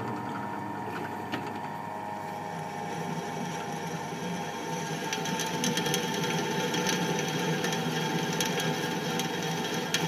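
Benchtop drill press running, its twist bit cutting into a bare metal plate: a steady motor hum, with a scraping cutting noise and scattered chip clicks that grow louder about halfway through as the bit bites deeper.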